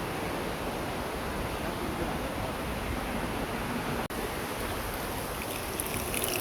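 Steady rushing of a waterfall, with a momentary break in the sound about four seconds in.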